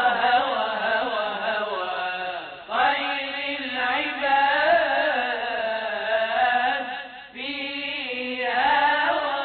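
A solo voice chanting long, wavering melismatic notes with no spoken words, breaking briefly for breath about three seconds in and again near seven and a half seconds.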